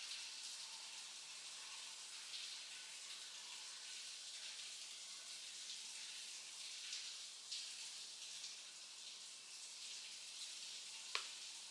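Faint scratchy brushing of an eyeshadow brush blending shadow on the eyelid, over a steady soft hiss, with a small click near the end.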